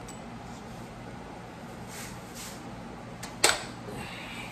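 Bolt cutters biting on a Harley Milwaukee-Eight pushrod: one sharp metallic snap about three and a half seconds in, over a steady low hum.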